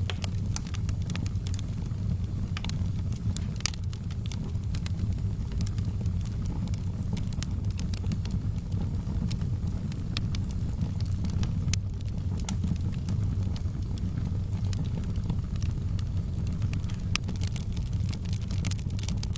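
Fire burning in a fireplace: a steady low rumble of the flames with sharp crackles and pops scattered irregularly throughout.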